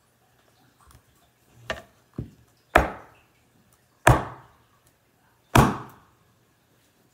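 A run of sharp wooden knocks from a cane sword's wooden hilt being rapped during hilt assembly. Two lighter knocks come first, then three loud ones about a second and a half apart, each trailing off briefly.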